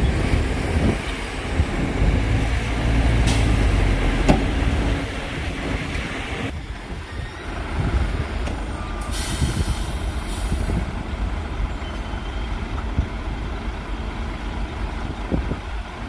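Heavy diesel dump truck's engine running, loud for the first six seconds or so and then quieter, with a short high hiss about nine seconds in.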